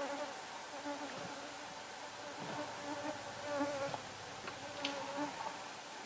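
Flying insects buzzing close by: a wavering hum that rises and fades as they come and go. A few faint sharp snaps are heard around the middle.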